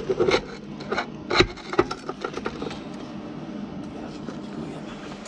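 Clicks and knocks of a steel vernier caliper being handled and set against a part on a metal lathe, several in the first two seconds, over a low steady hum.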